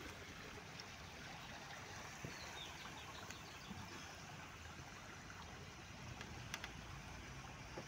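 Steady rushing of floodwater flowing across a road.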